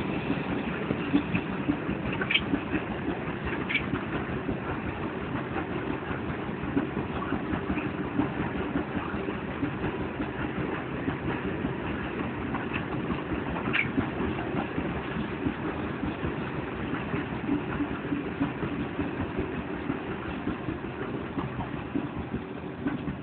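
Loaded coal hopper wagons rolling past on the rails: a steady low rumble of wheels and running gear, with a few brief high wheel squeaks.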